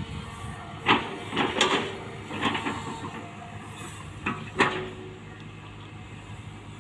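Tracked excavator's diesel engine running steadily under load while its bucket digs into soil, with a handful of sharp clanks and scrapes from the bucket and its linkage, the loudest about a second in and twice more near the middle.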